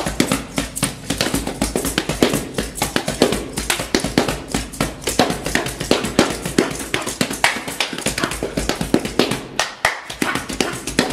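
Gumboot dance: hands slapping rubber gumboots and boots stamping in a fast, dense rhythm of sharp slaps, with a brief break just before the end.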